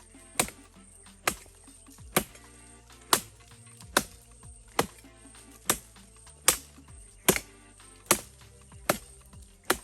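A blade chopping repeatedly into the thick stalk of an oil palm fruit bunch, with sharp even strikes about once a second. The bunch is tough and slow to come free. Music plays quietly underneath.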